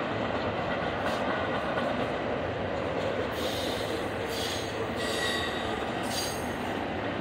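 Double-stack container freight train rolling past with a steady rumble of wheels on rail. From about halfway through, high-pitched wheel squeals come and go.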